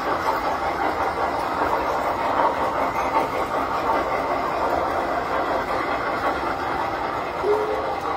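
Tinplate model trains running on metal track: a steady whirring clatter of their electric motors and metal wheels, with a short low tone near the end.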